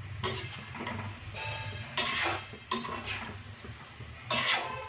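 Metal slotted spoon clinking and scraping against an iron kadhai as frying thekua are turned in oil: four sharp clinks, about a quarter second in, at about two seconds, just after, and near the end.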